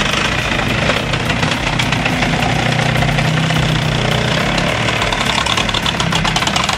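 A heavy machine's engine running steadily under a fast, rapid clatter of knocks.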